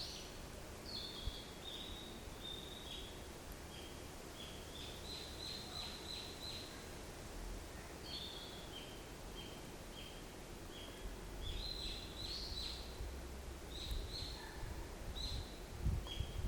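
A forest songbird sings phrases of short, high chirping notes that step down in pitch, a new phrase every few seconds. A steady low rumble runs underneath.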